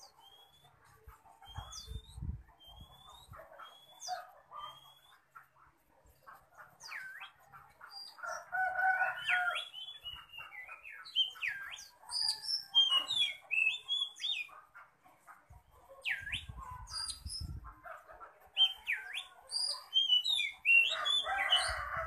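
Caged oriental magpie-robin in fierce full song. It opens with a run of short rising whistles, then from about seven seconds pours out a rapid, varied stream of whistled and chattering phrases.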